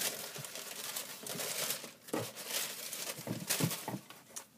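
Paper crinkling and rustling in irregular handling bursts, the kind made when packing paper is pulled from a new sneaker, dying away near the end.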